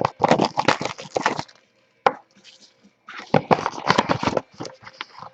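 Cardboard and wrapper packaging of a trading-card box being handled and opened, crackling and crinkling in two bursts with a short pause between them.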